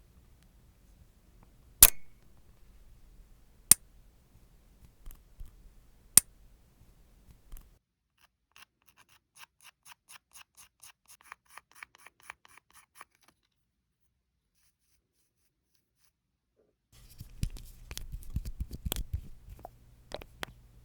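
Nail trimming with a small cutting tool: three sharp, loud clips in the first six seconds, then a run of light, quick snips at about two or three a second. Near the end comes a dense burst of clicking and scraping.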